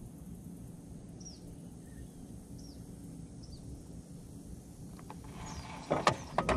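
Quiet outdoor ambience with a steady low rumble and a few short, falling bird chirps. About five seconds in, a cluster of sharp clicks and knocks sets in.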